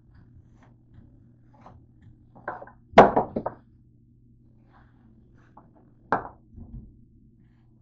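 A few knocks and thunks of things being handled at a kitchen counter, the loudest about three seconds in and another about six seconds in, with small clicks between them, over a steady low hum.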